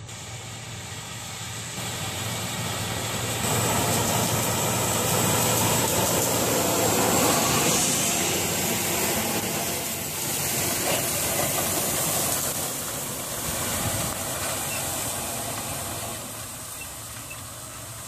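Case IH Steiger 620 Quadtrac's six-cylinder diesel engine working under load, pulling an 870 Ecolo-Tiger disk ripper through corn stubble, with the rushing hiss of soil and stalks being torn up. It grows louder as the rig comes close, holds through the middle, and fades toward the end.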